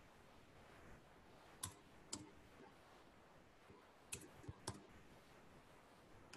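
A few sharp computer mouse and keyboard clicks over a quiet room. There are two clicks about half a second apart, then a quick cluster of three a couple of seconds later.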